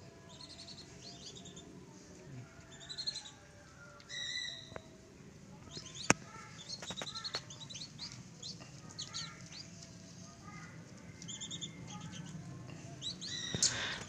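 A brood of young whistling duck ducklings peeping: many short, high chirps in quick runs. There is a single sharp click about six seconds in.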